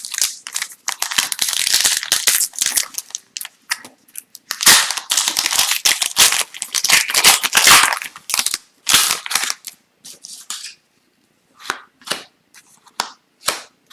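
Upper Deck hockey card packs being opened and the cards handled: bursts of crinkling and tearing wrapper with sharp snaps through the first eight seconds or so, then sparse light clicks of cards being flipped.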